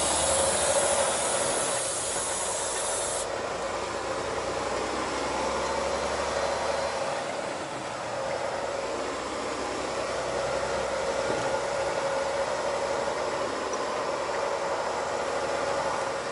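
Steady engine and road noise inside a semi truck's cab while driving slowly on city streets, with a faint constant hum. The low rumble eases about seven seconds in.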